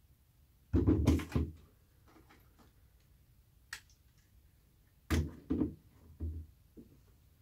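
Handling noise from lever-action rifles: a cluster of knocks and clunks as a rifle is lifted and moved on a wooden bench, a sharp metallic click near four seconds, then more clunks as it is laid down.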